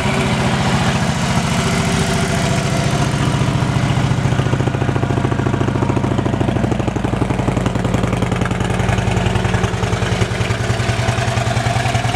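A Harley-Davidson Road King Classic's 103 cubic inch V-twin idling steadily through its aftermarket exhaust, with a pulsing exhaust beat.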